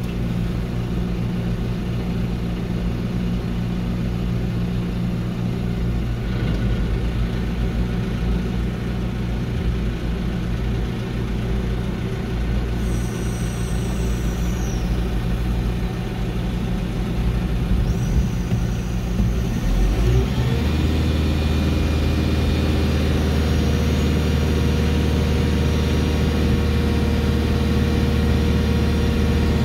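Teleporter (telehandler) diesel engine running, heard from inside the cab, revving up about two-thirds of the way through and holding the higher speed as it drives the boom hydraulics to lift a load.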